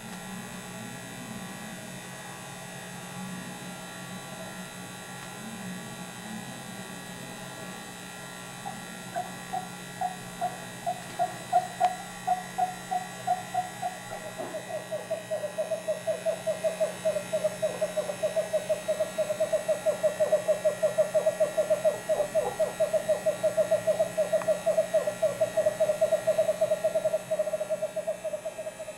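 Screech owl calling: single hoots about two a second begin about nine seconds in, then run together into a fast, even trill on one pitch that grows louder. A steady electrical hum lies underneath.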